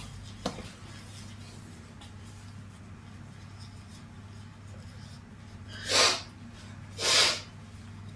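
Two loud sneezes from a woman about a second apart near the end, after a small click about half a second in, over a steady low hum.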